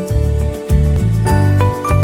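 Background music: a light instrumental track with a steady pulsing bass line and bell-like melody notes.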